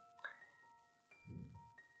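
Near silence with faint background music: soft, held single notes that step from one pitch to the next.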